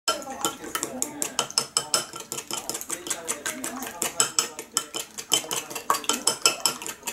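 Chopsticks whisking a raw egg in a small ceramic bowl: a fast, even clicking of wood tapping against the bowl, several strokes a second.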